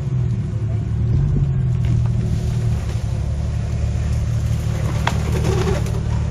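Off-road vehicle's engine running at a steady, low rumble.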